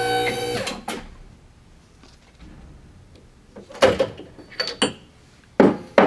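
A hydraulic hose crimper's powered pump running steadily, then shutting off about two-thirds of a second in as the crimp on a hose coupling finishes. Then a few sharp knocks as the crimper is handled, the loudest about four seconds in and again near the end.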